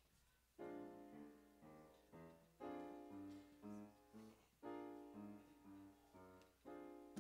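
Piano playing an introduction of struck chords in a steady rhythm, starting about half a second in.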